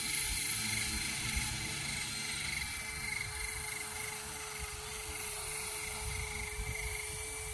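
Small homemade drone's electric motors and propellers spinning with a steady whine, over wind buffeting the microphone.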